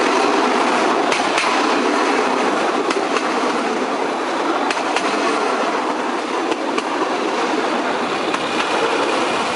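A bamboo train (norry) running along narrow-gauge rails: a steady loud rattle and drone, with pairs of sharp clacks about every two seconds as the wheels cross rail joints.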